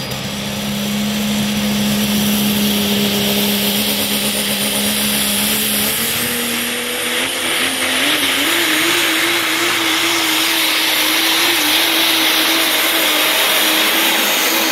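Diesel pickup truck pulling a weight-transfer sled at full throttle, its engine running hard at high rpm. About six to eight seconds in, the engine note climbs and then wavers as the truck comes down the track, with a strong high hiss and a thin whistle over it.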